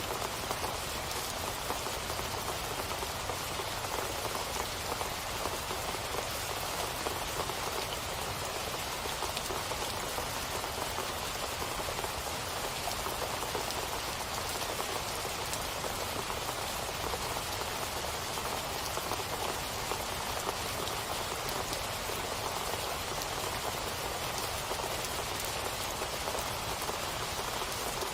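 Steady rain falling, an even patter of raindrops on a surface with no change in strength.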